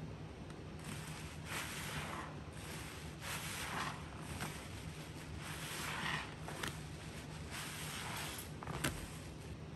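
Bleach-soaked sponge being squeezed, four wet squishing swells about two seconds apart, then a sharp click near the end.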